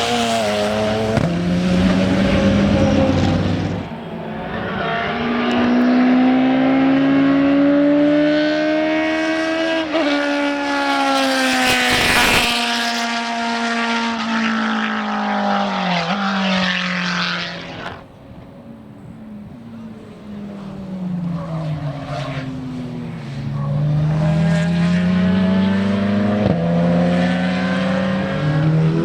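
Racing car engines on track, accelerating hard and climbing in pitch with repeated upshifts as they pass. The loudest pass comes about twelve seconds in. After a brief quieter spell, another car is heard approaching and accelerating through the gears.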